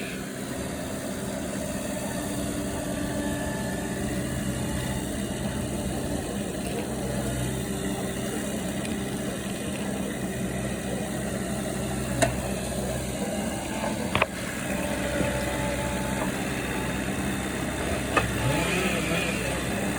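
An engine running steadily at an even speed, with a sharp knock about twelve seconds in and another about fourteen seconds in.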